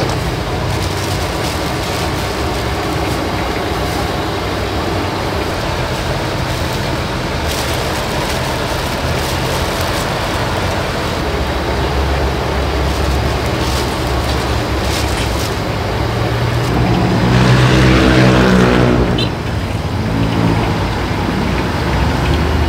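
Steady road traffic noise, with a heavy vehicle's engine swelling loudly as it passes about three quarters of the way through, then fading.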